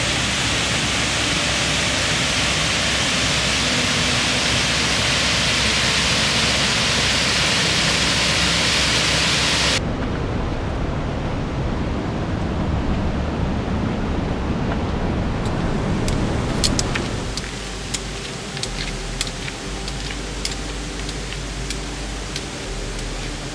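Steady rushing of a fast-flowing river running high. About ten seconds in it switches abruptly to a duller, lower rush, with scattered light clicks in the later part.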